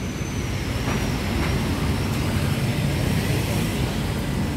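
Steady city traffic noise: cars passing on the road, a low rumble of engines and tyres.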